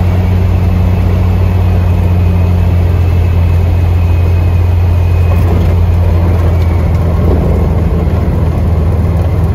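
Sling TSi light aircraft's Rotax 915 iS engine and propeller running steadily, heard loud inside the cockpit as the plane moves along the runway, with a deep, even hum.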